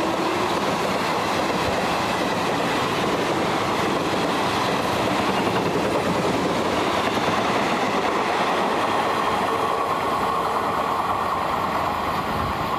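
Indian Railways passenger coaches passing close at speed: a loud, steady rush and rattle of wheels on rail that holds at the same level throughout. A horn note from the locomotive ahead cuts off right at the start.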